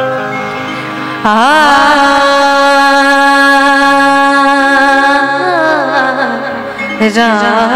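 A woman sings a bhajan with harmonium accompaniment. The harmonium plays alone at first, then about a second in she holds one long sung note with vibrato, lets it glide down, and starts a new phrase near the end.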